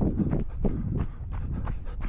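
Running footsteps in snow at an easy, steady pace, about three strides a second.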